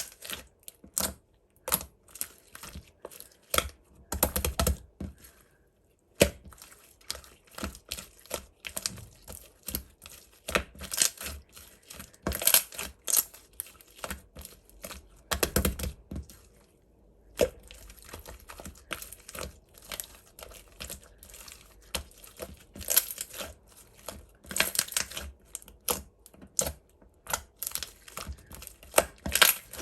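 Green marbled slime squished and stretched by hand, giving dense, irregular sticky popping and crackling clicks, with a couple of brief pauses.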